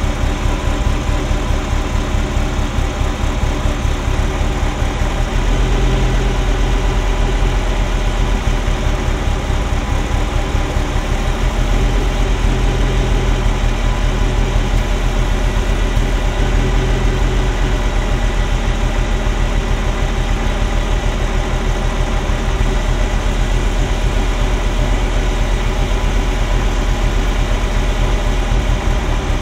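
Ferrari Mondial V8 running rough at idle with an uneven thrumming, misfiring on cylinders 5–8. The ignition timing is out, which the owner suspects comes from a faulty sensor. Its low drone gets deeper and stronger about five seconds in.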